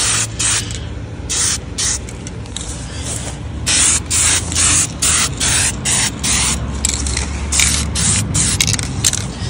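Spray paint hissing from the nozzle in many short bursts of varying length, often more than one a second, as masked wood cabinet trim is sprayed.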